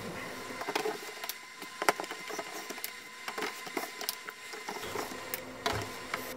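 Hot-swap drive trays being pushed into the front bays of a Dell PowerEdge R710 server and latched: irregular plastic-and-metal clicks and knocks over a faint steady hum.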